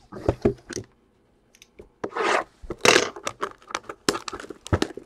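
Shrink-wrap being torn and rubbed off a cardboard Bowman Sterling baseball card box as it is opened: a run of short, rough tearing and scraping sounds.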